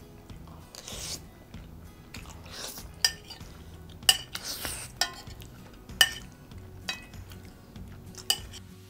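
Metal spoon clinking and scraping against a ceramic plate while pasta is scooped up and eaten. Six sharp clinks come roughly a second apart through the second half, with softer scraping between.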